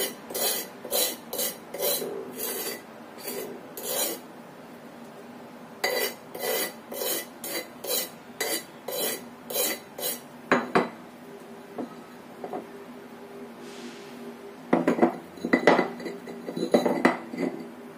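Spice paste being scraped out of a stone mortar into a plastic blender jug: short scraping strokes about twice a second in two runs. A few louder clinks of a spoon against the jug come near the end.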